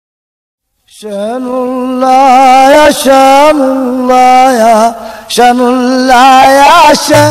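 A man's voice chanting a slow Sufi devotional melody. It starts about a second in and holds long notes with wavering ornaments, with two short breaks for breath.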